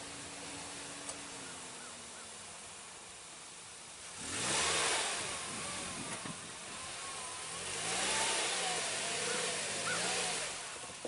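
Off-road vehicle engine revving in two bursts, the first about four seconds in and the second near eight seconds. Its pitch wavers up and down over a loud rushing noise as the wheels spin on loose ground.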